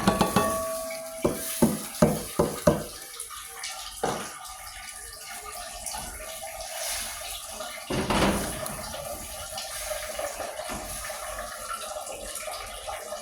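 Pumpkin pieces going into a pot of water: a quick run of knocks and splashes in the first few seconds and two more single knocks later, over a steady watery hiss from the pot.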